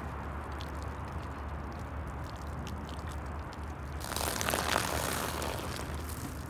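Beer poured from a can splashing onto grass, starting about four seconds in and fading after a second or so, over a steady low outdoor rumble.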